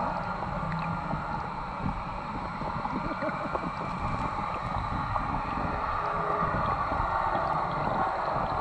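Muffled underwater noise picked up by a camera held beneath the river surface: a steady low rumble with occasional bubbling.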